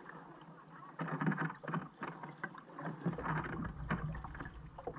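Kayak paddle blades dipping and pulling through calm sea water, giving irregular splashes with each stroke, with water sloshing against the hull; a low wind rumble comes in about three seconds in.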